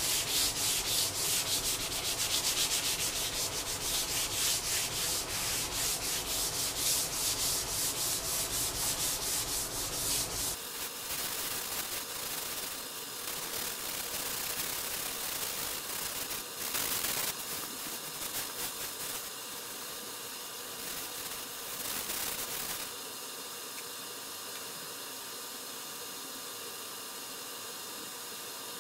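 Sanding by hand in quick back-and-forth strokes, about four a second, for roughly the first ten seconds; then lighter, sparser rubbing, and a steady faint hiss near the end.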